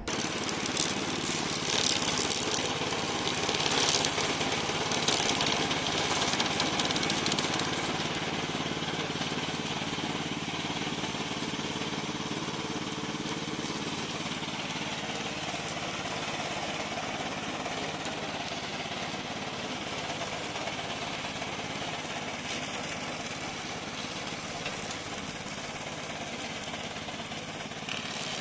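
Remote-control slope lawn mower running, its motor and cutting deck working steadily, a little louder in the first several seconds.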